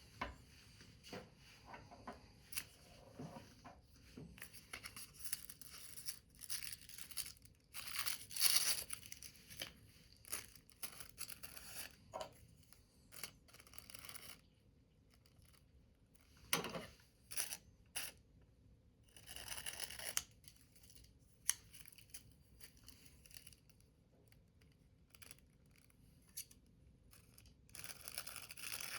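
Paper and thin card being cut, folded and handled in irregular bursts of rustling and snipping, with scattered small clicks.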